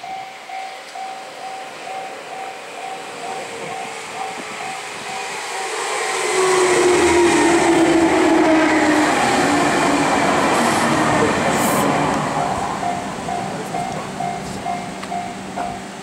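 A level-crossing warning bell dings rapidly and steadily while a Meitetsu 1800-series two-car electric train runs past. Its running noise swells about six seconds in, stays loud for around six seconds with a whine that drops in pitch, then fades away. The bell is heard clearly again after the train has gone.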